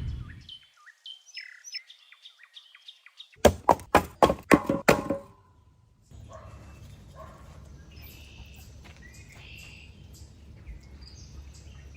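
Small birds chirping and tweeting. A little over three seconds in, about six loud, sharp knocks come in quick succession over a second and a half. After that a steady low rumble sets in under more chirps.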